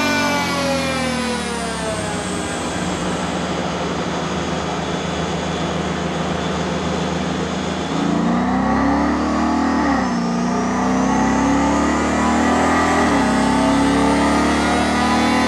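Ford Mustang engine and exhaust running on a chassis dyno: the revs fall away over the first two seconds and settle into a steadier, lower note. About eight seconds in it gets louder and pulls under load, the pitch climbing, dropping back twice, and climbing again.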